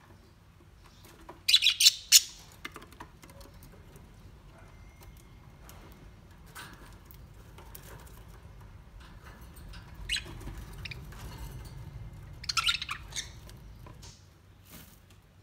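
Bird chirps and squawks in three short bursts: about two seconds in, around ten seconds, and again near thirteen seconds, the first the loudest. A low steady rumble lies beneath them.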